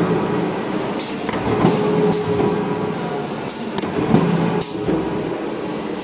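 Cable tray roll forming production line running: a steady machine hum with repeated metallic clanks at irregular intervals.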